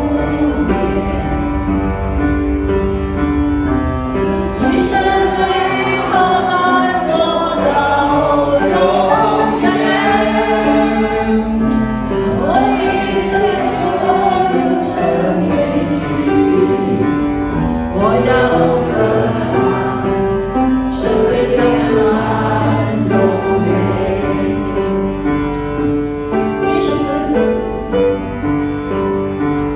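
Christian worship song: several voices singing together over instrumental accompaniment, continuous and steady in level.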